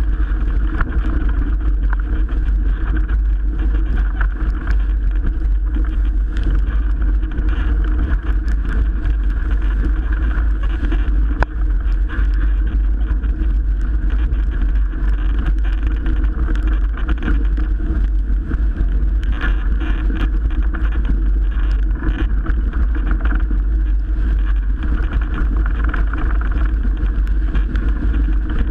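Strong wind buffeting the microphone, a steady heavy rumble with rushing noise over it, aboard a Melges 24 sailboat running in 30-plus-knot wind.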